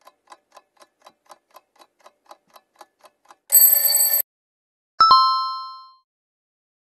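Countdown-timer sound effects: faint clock ticking, about four ticks a second, then a short loud alarm-clock ring about three and a half seconds in. About a second later comes a bright two-note chime that rings out and fades, the signal for the correct answer.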